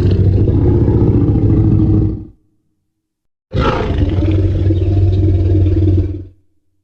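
Two Jurassic Park Tyrannosaurus rex roar sound effects, each about three seconds long, separated by a short silence. Each roar opens with a shrill, high edge over a deep rumbling bellow and then tails off.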